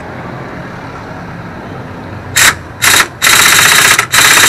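Pneumatic impact wrench hammering on the scooter engine's bolts in four loud bursts, two short ones about halfway through, then two longer ones of about a second each.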